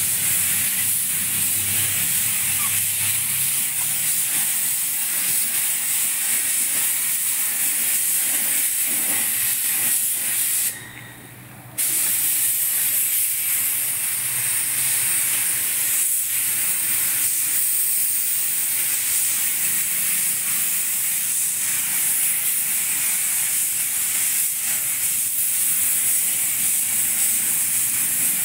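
Compressed-air paint spray gun hissing steadily as it sprays paint. The hiss stops for about a second a little before the middle, then starts again.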